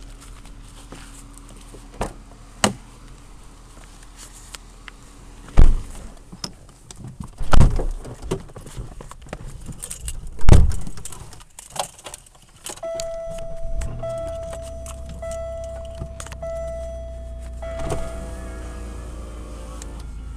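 Clicks and three loud thumps of getting into a car, then the car's warning chime: one steady tone broken about once a second. The engine starts about two-thirds of the way in and idles with a low, steady rumble.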